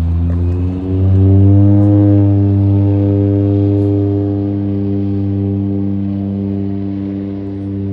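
Seaplane's propeller engine rising in pitch over the first two seconds as it is opened up to takeoff power, then running steadily at high power through the takeoff run.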